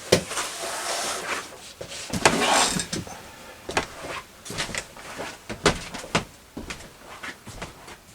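Household handling noises: irregular knocks and clicks, with two longer scraping or rustling sounds near the start and about two and a half seconds in, as someone moves about and handles things.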